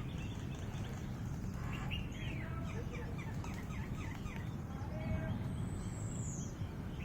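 Small birds chirping and calling, with a quick run of downward-sweeping chirps about two seconds in and a single high, falling whistle near the end, over a steady low background rumble.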